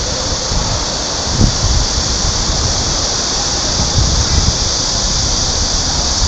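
Ambient sound of a futsal match in play: a steady hiss over a low rumble, with a couple of soft thumps about a second and a half in and again around four seconds.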